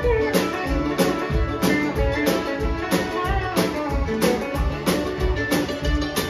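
Country band playing live, with acoustic guitar, mandolin, pedal steel, accordion and drums, on a steady beat of about one and a half beats a second.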